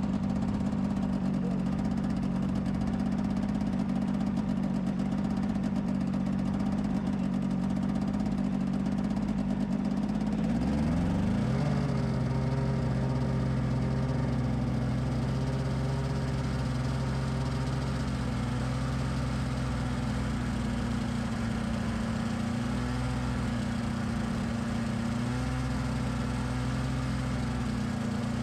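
Snowmobile engine idling steadily, then its pitch rises about ten seconds in and it settles into a steady, faster run as the sled moves off slowly.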